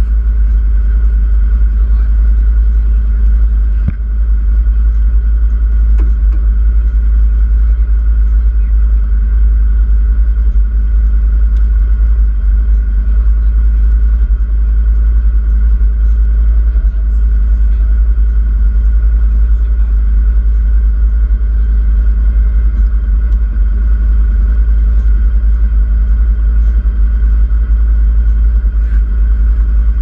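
Side-by-side utility vehicle's engine running steadily while driving, under heavy wind buffeting on the microphone.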